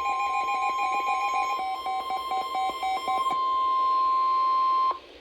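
NOAA Weather Radio warning alarm tone: a single steady high tone, the attention signal that introduces a National Weather Service warning. For the first three seconds or so, a second choppy electronic beeping pattern plays over it. The tone cuts off sharply just before the end.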